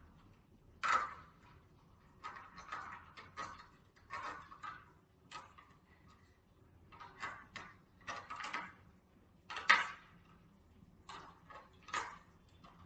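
Scattered plastic clicks and rattles of a toy remote-control car being handled as its batteries are put back in, coming as short irregular bursts.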